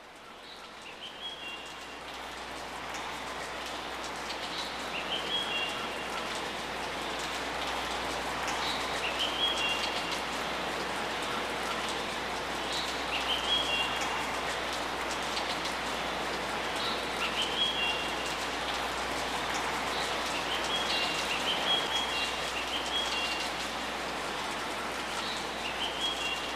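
Water from a garden pond's water feature splashing steadily into a koi pond, growing louder over the first several seconds. A bird gives a short high chirp every few seconds.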